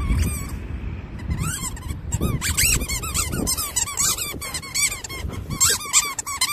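Labradoodle giving rapid, high-pitched squeals and whines in excitement as it digs, over the rough scraping of its paws in sand.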